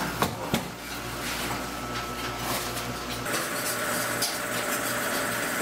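Noodle-making machinery hums steadily, with two sharp knocks near the start as a roll of noodle dough sheet is set onto the sheeting rollers. A little after three seconds the sound changes to a dough mixer running, tumbling crumbly noodle dough in a stainless steel hopper.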